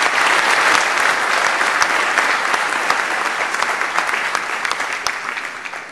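Audience applauding, many hands clapping together, slowly easing toward the end.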